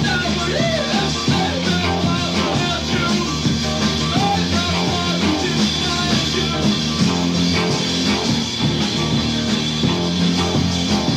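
Early-1980s rock band recording playing steadily: full band with guitar over a held bass line.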